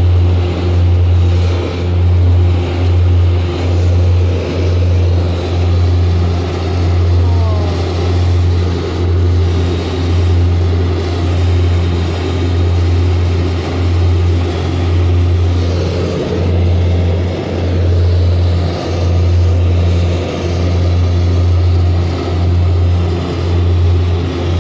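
Loud, steady low drone of a small private aircraft's engines heard inside the cabin in flight. The drone swells and fades about once a second.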